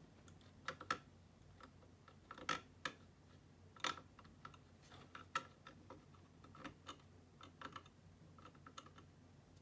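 Irregular clicks and taps of keys being pressed on a laptop keyboard, a dozen or so with uneven gaps, the sharpest about one, two and a half, four and five and a half seconds in.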